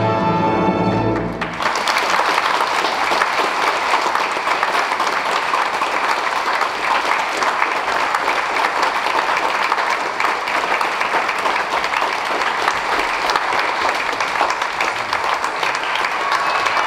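An orchestra's final held chord cuts off about a second and a half in, and a theatre audience breaks into steady, sustained applause.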